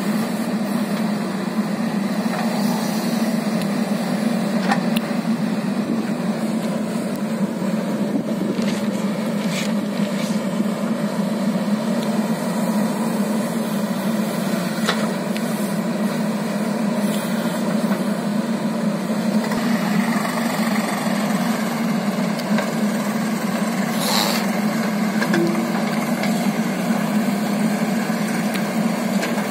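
JCB 3DX backhoe loader's diesel engine running steadily while the backhoe arm digs and dumps soil, with a few short knocks now and then.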